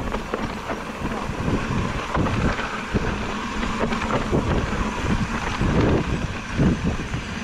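Electric mountain bike riding over a bumpy dirt trail: tyres rumbling on the dirt, with short knocks and rattles from the bike over the bumps and wind on the microphone.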